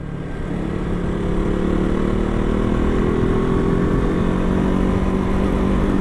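KTM RC 200 motorcycle engine running while riding at a steady speed. The note and level build a little in the first second, then hold, with wind rushing over the microphone.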